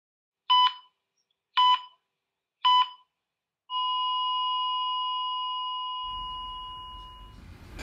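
Heart-monitor beeps as a sound effect: three short beeps about a second apart, then one long steady flatline tone that slowly fades away. The flatline marks the man's death.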